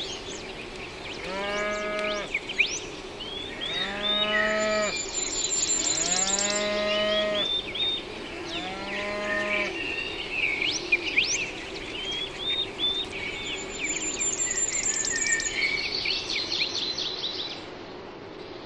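A cow mooing four times, each call about a second long and a couple of seconds apart, over a steady chorus of small birds chirping and twittering.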